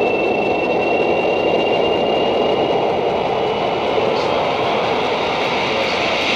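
Steady rumbling roar, like a large machine or vehicle in motion, with a faint thin high whine held over it.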